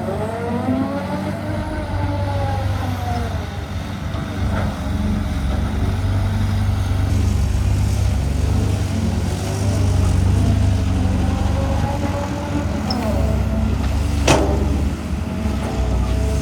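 Cat 320GC excavator diesel engine running steadily under load, with a hydraulic whine that rises and falls as the arm and bucket move. There is a sharp metal knock about four seconds in and a louder one near the end.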